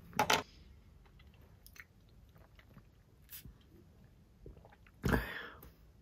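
Close-up mouth and handling sounds of someone taking supplements: two sharp clicks just after the start, soft chewing and small ticks, then one louder short mouth sound about five seconds in as liquid iron is drunk from a small brown bottle.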